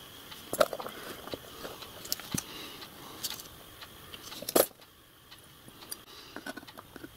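Small metal parts clinking and tapping as they are handled and fitted together on a bench, a scatter of light clicks with one sharp click about four and a half seconds in.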